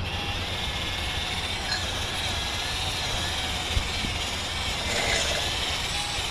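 Wire-feed (MIG) welder arc crackling and hissing steadily as a weld bead is run, starting abruptly at the outset, over a low electrical hum.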